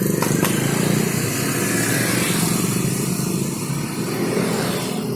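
A motor vehicle engine running steadily, with two short clicks about half a second in.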